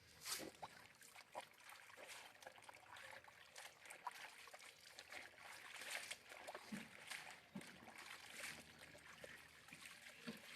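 Water sloshing, trickling and splashing as towels are washed in water, with scattered soft knocks.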